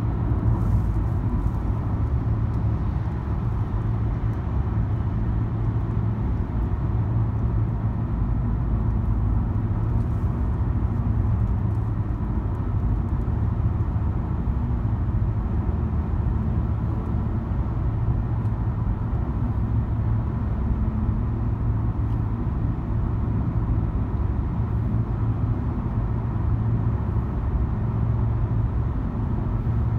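Steady low rumble of a car driving at highway speed, heard from inside the cabin: engine and tyre road noise.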